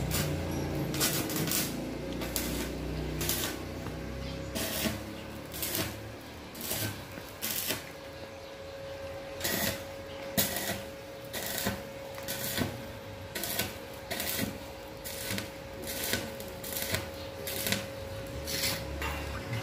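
Stick (arc) welding on a steel C-channel canopy frame: the arc crackles and spits in short sharp bursts, about one to two a second, over a steady faint hum.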